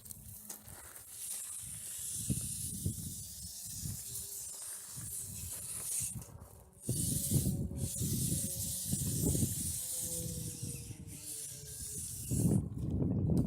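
Shallow snowmelt runoff stream flowing with a steady hiss, while wind buffets the microphone in gusty low rumbles. A faint whine from the small electric motor of a 1/24-scale rock crawler comes through in the middle.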